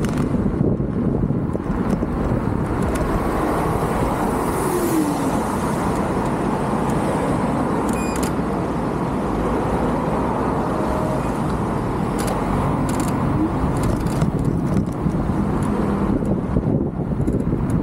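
Steady road traffic noise with cars going by, heard from a moving electric scooter.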